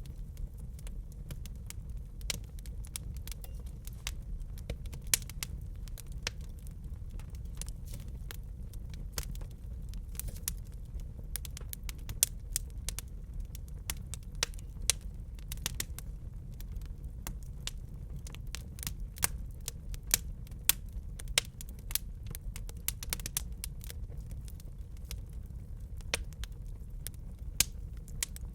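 Wood fire in a fireplace crackling: irregular sharp pops and snaps over a steady low rumble, the pops thickest through the middle.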